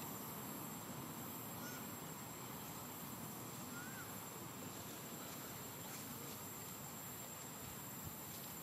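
Faint outdoor ambience dominated by a steady, high-pitched insect drone that does not change, with a couple of faint short chirps about two and four seconds in.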